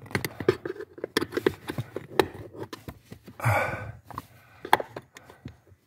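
A hand working a white plastic footrest clip on the footwell carpet: rubbing and scraping on the carpet with many small scattered clicks and knocks, and a heavy breath about three and a half seconds in.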